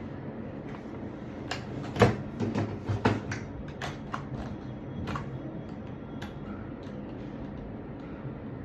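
Irregular clicks and knocks of a mechanical keyboard and its packaging being handled, with the loudest knock about two seconds in and a cluster just after it, over a steady low hum.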